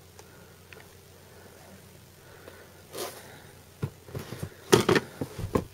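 Low background noise for about three seconds, then a scatter of brief rustles and knocks from a sneaker being handled and turned in the hands.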